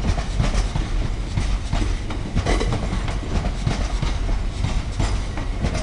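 A long freight train of bogie hopper wagons rolling past: a steady low rumble with the wheels clicking over rail joints.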